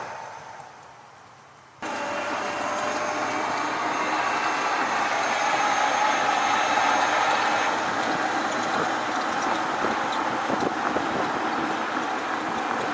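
Mercedes-Benz GenH2 fuel-cell truck driving: a steady rushing road-and-running noise with a few faint steady tones. It starts abruptly about two seconds in, after the previous sound fades away.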